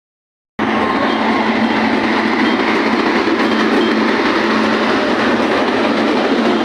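Steady, loud noise of a moving train running along the track. It starts abruptly about half a second in.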